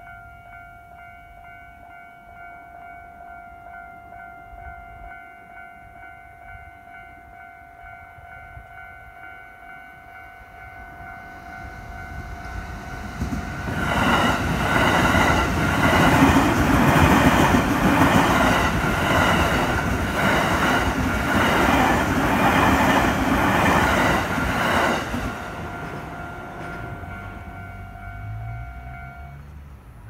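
Japanese railway level-crossing alarm ringing steadily. A JR Utsunomiya Line electric commuter train approaches and passes from about 14 to 25 seconds in, loudest as it goes by, its wheels clattering over the rail joints. The alarm stops just before the end as the crossing clears.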